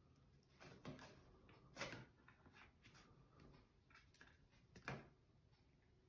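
A cat nosing through a paper bag and disposable face masks: three faint, short rustles over near silence, about a second, two seconds and five seconds in.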